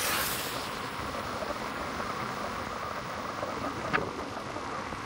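Wind rushing over the microphone with road noise while riding an electric scooter, and a short high chirp about four seconds in.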